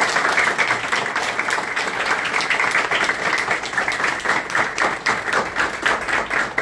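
Applause from a roomful of people, many hands clapping steadily.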